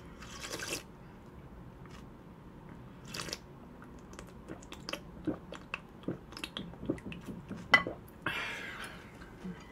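A person slurping cold broth from a bowl of acorn-jelly soup, two short sips in the first few seconds, then chewing the mouthful with many small wet clicks. Close-miked eating sounds.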